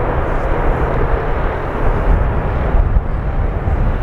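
Jet engines of a twin-engine widebody airliner on the runway: a loud, steady rumble and roar with a hiss on top.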